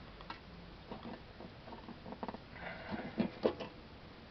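Scattered light clicks and knocks of hands working at the air cleaner housing on top of the carburetor, opening it to reach the air filter, with a quick cluster of knocks in the last second and a half.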